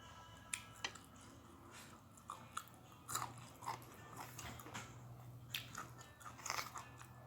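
A person biting and chewing crunchy food close to the microphone: irregular crunches and mouth clicks.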